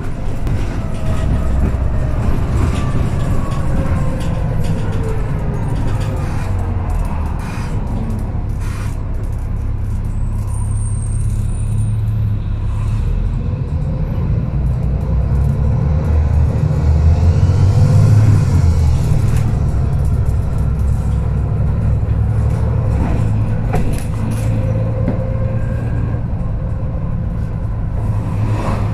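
Volvo B7TL double-decker bus heard from inside the lower deck while under way: its 7.3-litre six-cylinder turbo diesel gives a deep steady drone, with whining tones that slide down and then up again, loudest about eighteen seconds in.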